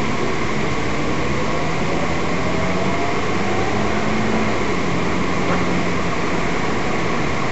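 Steady cabin noise of a car being driven slowly: engine hum and road noise, the hum shifting a little in pitch as the speed changes.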